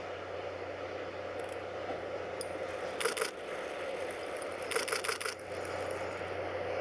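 DD51 diesel-hydraulic locomotive hauling a freight train, its engines running with a steady low drone as it approaches. Two brief bursts of sharp clicking and rattling come about three and five seconds in.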